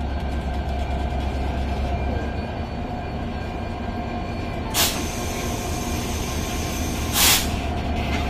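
Diesel-electric locomotive idling at standstill: a steady low engine rumble with a constant whine over it. Two short bursts of hiss cut in, about five and seven seconds in.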